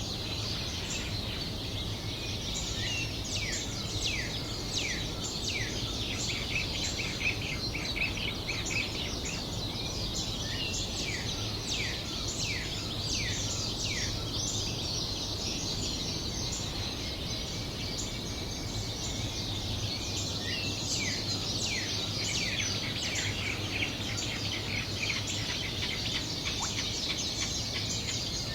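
Dawn chorus of many birds at a pond: dense overlapping chirps and short falling calls, over a steady low background rumble.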